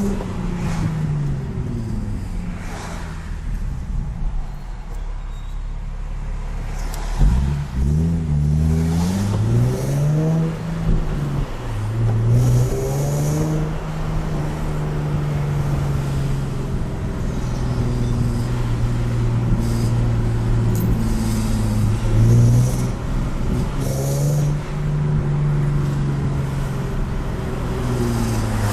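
Car engine and exhaust under way: the engine note climbs sharply about seven seconds in, drops back after a few seconds, then holds almost steady with small rises and dips.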